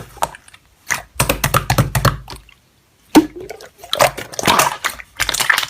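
Slime being squeezed and pressed by hand, making irregular wet clicks and squelches, with a short pause about three seconds in.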